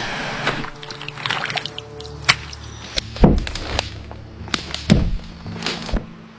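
Irregular sharp knocks and clacks of hand construction work, roughly one every half second to second, the loudest a little after three seconds and again near five seconds, over steady background music.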